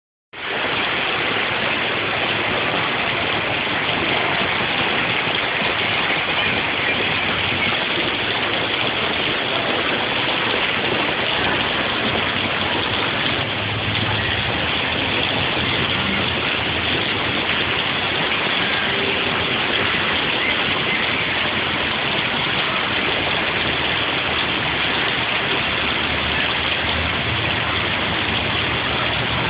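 Heavy rain and floodwater flowing down a flooded street make a steady, even noise. A vehicle engine's low hum joins in about halfway through and again near the end.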